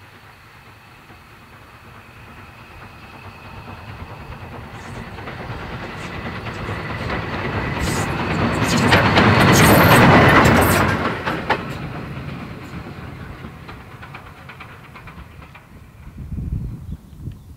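Lambton Colliery tank engine No. 29, a Kitson 0-6-2T steam locomotive, approaching and passing, growing louder to pass by about ten seconds in and then fading away. Its wheels click over the rail joints as it goes by. A brief wind rumble on the microphone near the end.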